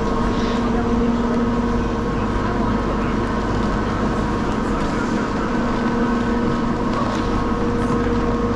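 Steady mechanical drone of ski chairlift machinery, with a low hum that drops away about a second in and comes back strongly about two-thirds of the way through.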